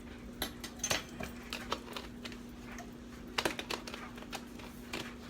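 Light, scattered clicks and taps of a measuring spoon and spice containers being handled while seasonings are measured out, over a steady low hum.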